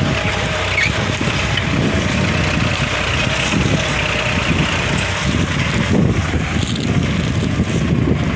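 ACE 550 tractor's diesel engine running steadily under load while pulling a hydraulic reversible plough through soil.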